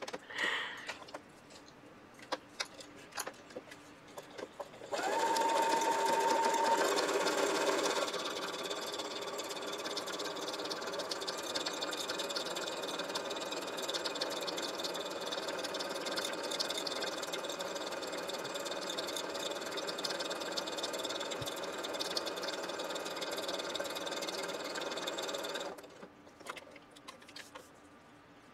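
Brother sewing machine starting up about five seconds in, running fast with a brief steady whine at first, then stitching steadily for about twenty seconds before stopping near the end. Light handling clicks before and after.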